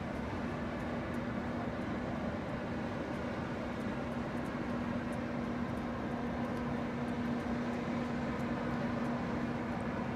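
Ship's engines running: a steady low drone with a constant hum over a broad rumble.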